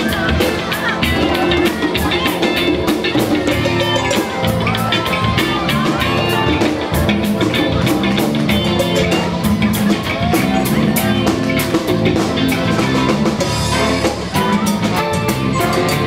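Live band playing: drum kit and congas keep a steady beat under guitar and a horn section of trombone, trumpet and saxophone.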